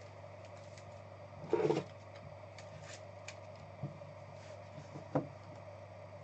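Trading cards and a rigid plastic card holder being handled on a table: a short rustle about a second and a half in, then a few faint light clicks, over a steady low hum.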